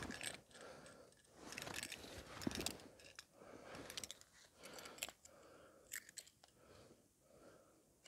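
Faint, scattered clicks, scrapes and rustles of small objects being handled.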